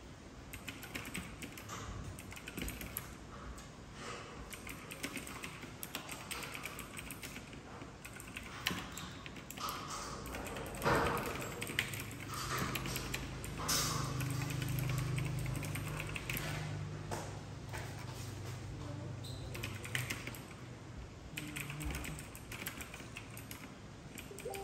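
Computer keyboard being typed on: quick, irregular key clicks throughout. A low steady hum comes in about halfway through and fades out near the end.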